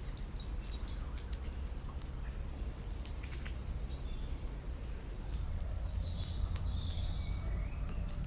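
Wild birds calling with short, high chirps and whistles, over a steady low rumble.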